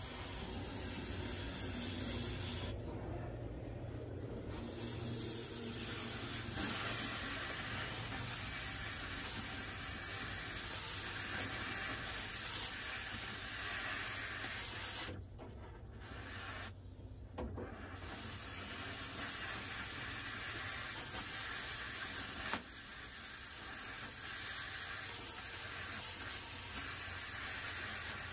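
Cutting torch hissing steadily, with two short breaks in the hiss, near the start and about midway.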